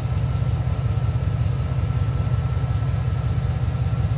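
Vehicle engine idling steadily, a low rumble with a fast even pulse and a faint whine above it.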